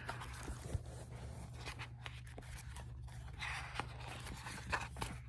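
Paperback book handled close to the microphone: pages and cover rustling and riffling, with a few small clicks and taps, strongest about three and a half seconds in. A steady low hum runs underneath.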